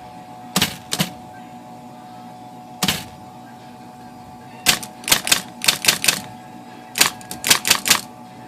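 Brother electric typewriter typing: two key strikes about a second in, one near three seconds, then two quick runs of about five or six strikes, over the steady hum of the running machine. The characters are being typed as a test to check print height after adjusting the shift stops.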